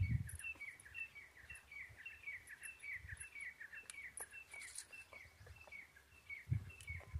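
A small bird chirping over and over, short falling notes about three or four a second, with a few low thumps near the start and near the end.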